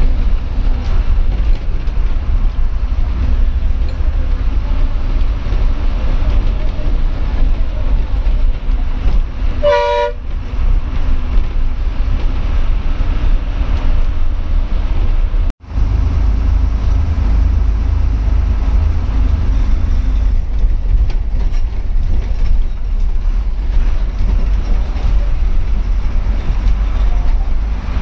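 The diesel engine and road noise of a TNSTC bus, heard from the front cabin, running with a steady low rumble. About ten seconds in comes one short horn toot. A little past halfway the sound cuts out for an instant.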